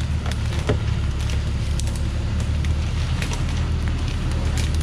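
Thaco Foland truck's diesel engine idling with a steady low hum, scattered with small crackles and snaps of dry bark and branches underfoot.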